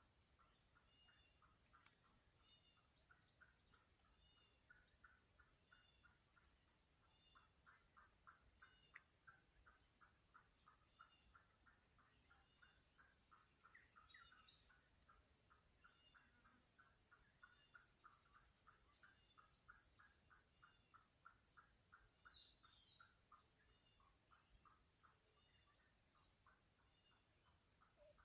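Faint insect chorus: a steady high-pitched shrill, with a lower pulsing call repeating a few times a second and short chirps about once a second.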